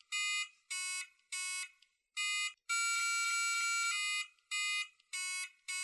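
Robobloq Qoopers robot kit's built-in speaker playing a simple tune note by note from a phone keyboard app: high, thin electronic beeps, mostly short notes with one long held note in the middle, stepping up and down in pitch.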